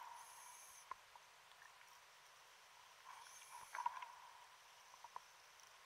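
Near silence underwater: faint background hiss with a few soft clicks and two brief faint hisses, one at the start and one about three seconds in.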